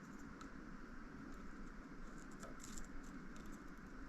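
Faint, scattered clicks and light taps of small metal fork parts and a hand tool being handled, with a short flurry of clicks about two and a half seconds in, over a steady low room hum.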